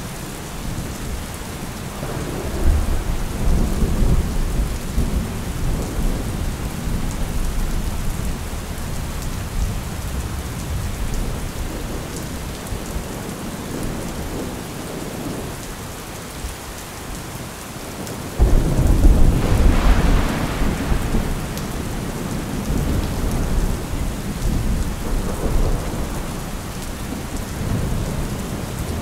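Steady rain with rolling thunder. A low rumble swells a few seconds in, then about two-thirds of the way through a louder peal of thunder breaks suddenly and rumbles away.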